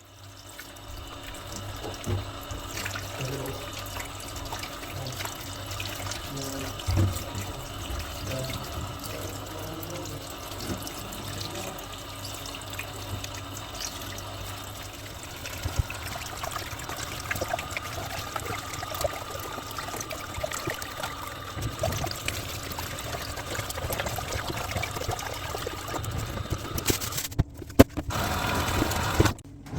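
Running water, with scattered light clicks and knocks.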